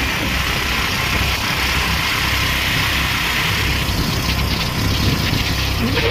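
Motorcycles running along a road, heard from the back of a moving bike: a steady rush of engine and road noise with a low rumble.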